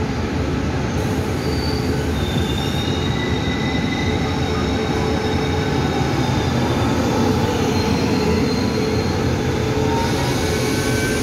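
Taiwan Railway Tze-Chiang express train pulling into Taipei's underground station: a steady rumble of wheels on rail, with thin high-pitched wheel squeals drifting slightly in pitch.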